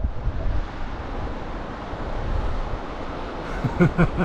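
Steady rushing of river water, with a low rumble of wind on the microphone.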